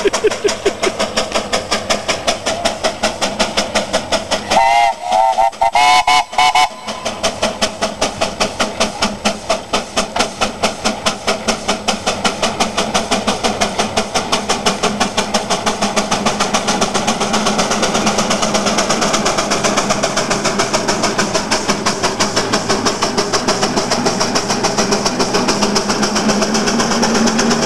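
Steam traction engine under load pulling a plow: a steady, rapid beat of exhaust chuffs from its stack, with a few short whistle toots about five to seven seconds in.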